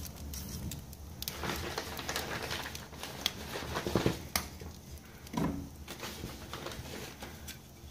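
Wood fire crackling in the open firebox of a wood-burning stove as softwood kindling and logs catch, with irregular sharp pops and a couple of louder cracks about four seconds in.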